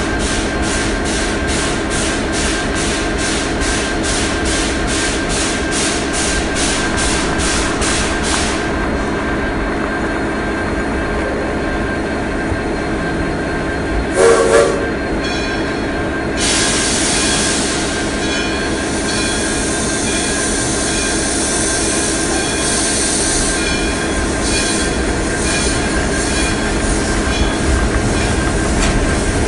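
Model trains running on a layout: a steady motor hum and the rumble of wheels on the track. For the first few seconds there is a rhythmic beat of two or three strokes a second, like a model steam locomotive's chuff. About halfway through the whistle gives two short toots, and a brighter hissing rattle follows.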